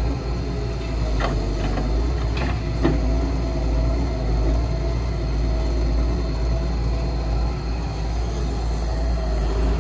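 Heavy construction machine's diesel engine running steadily at work, with a few short metallic knocks about one to three seconds in.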